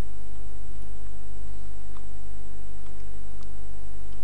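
Steady electrical mains hum on the recording, with a few faint clicks.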